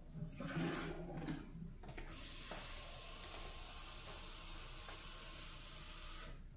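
Water tap running as clean water is drawn into a container: a steady rush of water that starts about two seconds in and is shut off abruptly near the end. A shorter, lower-pitched rush of water comes first.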